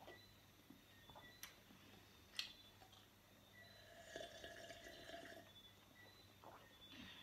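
Faint close-up sounds of beer being drunk from glass mugs: swallows and gulps of liquid, with a few sharp clicks, the sharpest about two and a half seconds in. A drawn-out swallowing sound comes a little after the middle.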